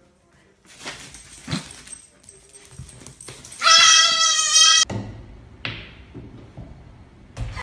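A baby goat bleating: one loud, quavering cry of about a second, a little past halfway, that cuts off abruptly. A sharp knock follows near the end.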